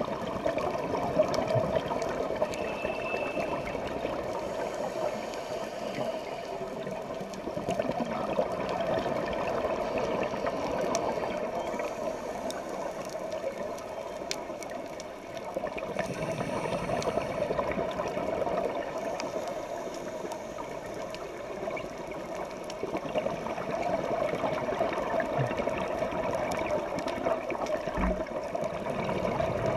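Underwater sound heard by a dive camera inside its waterproof housing: a steady, muffled rush of water with scattered faint clicks.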